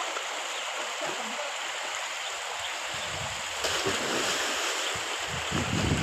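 Steady rush of water from a waterfall and stream pouring into a rock pool, growing a little louder a bit over halfway through.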